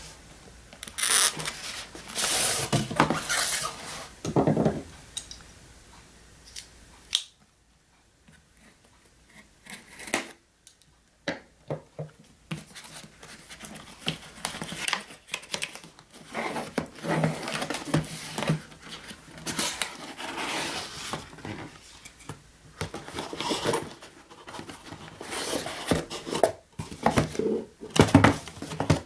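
Cardboard packaging being handled: a box slid out of its sleeve and opened, with bursts of rubbing, scraping and rustling and a few sharp clicks and knocks, the loudest knocks near the end.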